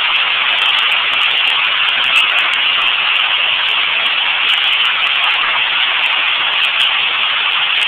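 Hail falling heavily onto pavement in a hailstorm: a loud, steady dense hiss with many sharp ticks from individual stones striking.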